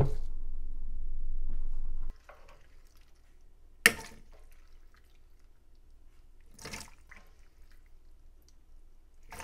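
Stone pestle grinding spices in a volcanic-stone molcajete, a steady low rubbing rumble that stops after about two seconds. Then a metal ladle clinks sharply against a plastic blender jar a little before the four-second mark, with soft wet drops and splashes as soaked dried chiles and their liquid fall into the jar.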